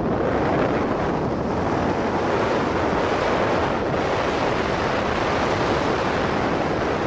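Steady wind rushing and buffeting over a camera microphone while descending under an open parachute canopy.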